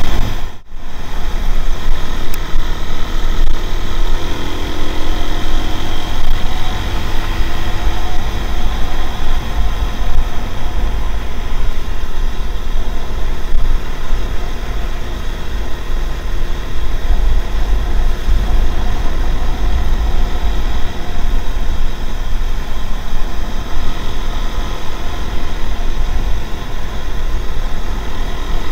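Road noise from a ride, recorded on an action camera's built-in microphone: wind buffeting the mic, heavy at the low end, over a running motorcycle engine. The sound cuts out briefly about half a second in.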